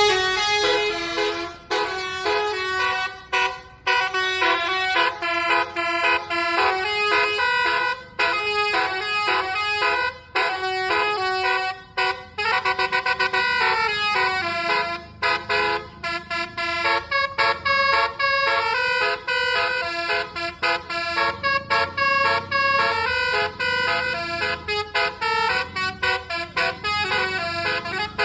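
Bus telolet horn, a multi-tone air horn, playing a long fast melody: the notes step up and down several times a second, with many short breaks between phrases.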